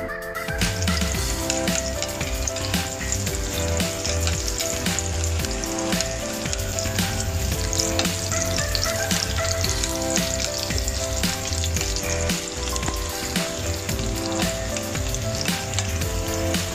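Thinly sliced shallots frying in hot cooking oil in a pan, a dense sizzle and crackle that starts about half a second in, with background music underneath.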